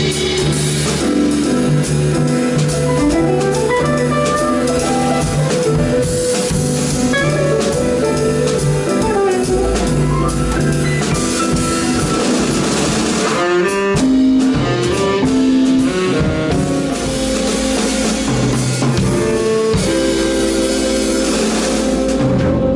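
A live band playing a tune together in rehearsal, starting straight off a three-beat count-in: a guitar melody over drum kit and a low bass line, with a short break partway through.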